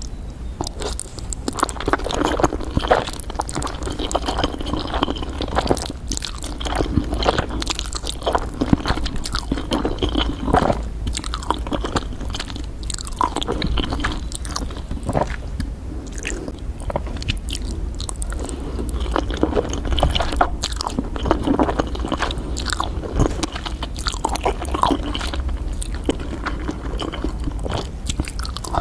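Close-miked eating for ASMR: a person chewing and biting into creamy fire noodles and kielbasa sausage, a steady stream of wet smacks and crisp little clicks over a low steady hum.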